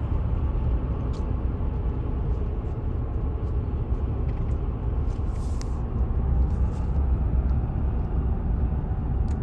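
Chevrolet Silverado 5.3L V8 engine running smoothly with a steady low rumble, no misfire now that the broken spark plug behind the P0300 code has been dealt with.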